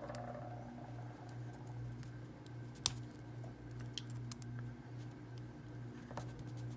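Small metal clicks and ticks of hand tools working on the parts of a Master round-body padlock as it is taken apart, with one sharper click about three seconds in, over a steady low hum.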